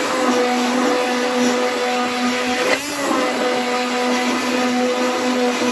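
Hand-held immersion blender running in a pot of thick soup, a steady motor hum with the blade churning the liquid. The hum dips briefly about three seconds in.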